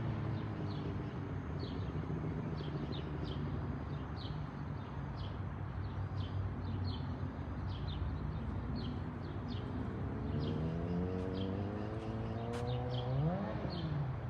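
Suzuki GSX-R600 inline-four engine idling steadily, then revving up with rising pitch as the bike pulls away about ten seconds in, the revs dropping sharply near the end. Birds chirp repeatedly in the background.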